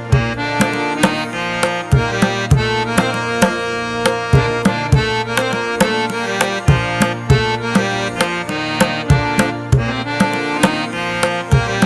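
Instrumental background music: a hand-drum beat under a sustained melodic instrument.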